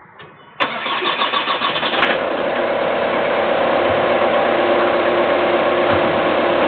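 A car engine starts about half a second in, runs fast for a second and a half, then settles into a steady idle.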